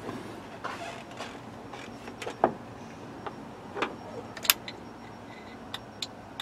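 A few scattered clicks and knocks inside a truck cab. Near the end a turn signal flasher starts clicking in an even rhythm of about three clicks a second.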